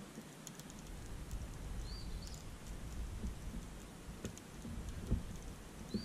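Spinning reel being cranked against a hooked fish, a faint irregular clicking over a low rumble of wind and water.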